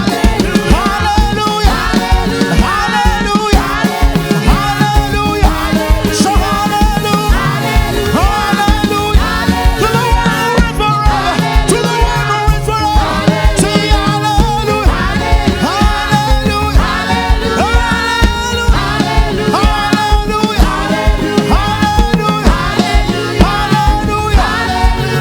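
Live gospel praise band playing an upbeat song with a steady drum beat, bass and a gliding melody line.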